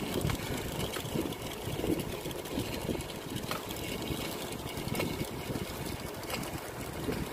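Wind buffeting and road rumble on the microphone of a camera moving along with the cyclists, a low uneven rush with a few scattered light clicks.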